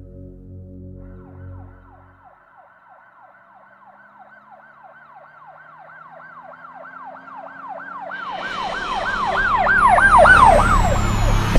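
A siren in quick repeated falling sweeps, about three a second, swelling steadily louder. A deep rumble and hiss join about eight seconds in. Soft ambient music fades out in the first two seconds.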